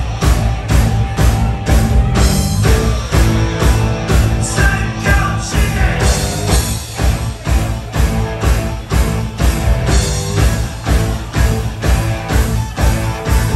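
Live rock band playing an up-tempo song: electric guitars, bass and a drum kit over a steady driving beat, with a male singer's voice at times.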